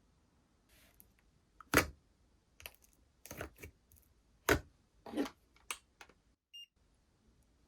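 Slime being pressed and stretched by hand, giving a run of sharp clicks and short crackly pops, the two loudest about two seconds and four and a half seconds in.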